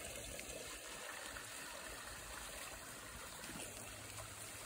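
Faint, steady trickle of water flowing through a garden pond stream and over its waterfall spillway.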